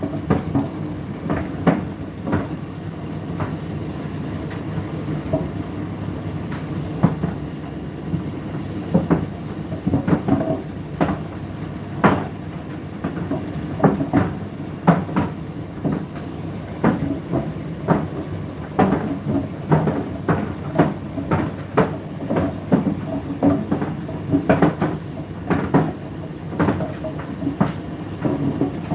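Indesit IDC8T3 8 kg condenser tumble dryer running mid-cycle: a steady hum of the motor and turning drum, with irregular knocks of the load tumbling in the drum, about one or two a second.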